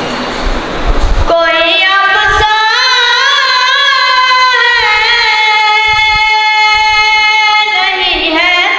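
A boy singing a naat, an Urdu devotional song, into a handheld microphone. After a short break at the start, his voice comes in about a second in and holds long notes that bend and turn in pitch.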